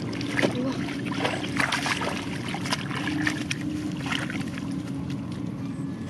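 Shallow muddy water splashing and sloshing as hands work through mud and straw and catfish move in the puddle, with many short splashes throughout.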